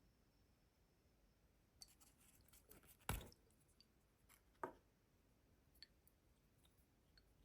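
Faint handling of the perfume packaging: scattered light clicks and taps, with two louder knocks about three seconds in and again a second and a half later.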